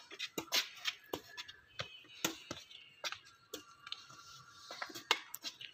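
Badminton rally: a series of sharp, irregular taps as rackets strike the shuttlecock.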